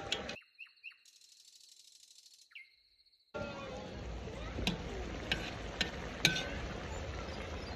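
Pilaf cooking in a large kazan over a fire: a steady sizzling, bubbling hiss with several sharp crackles. Near the start comes a roughly three-second stretch of near quiet with a faint high whine and a few short chirps.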